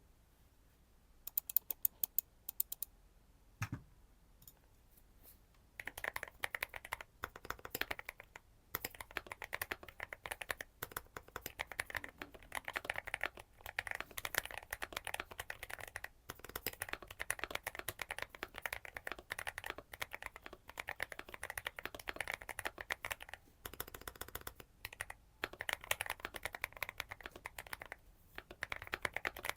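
Mechanical keyboard with Aflion Ink tactile switches being typed on: a few separate keystrokes at first, a single low thump near four seconds, then steady fast typing from about six seconds with short pauses.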